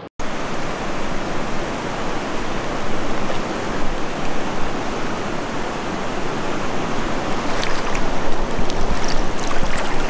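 Stream water rushing steadily close to the microphone, with a few faint clicks near the end.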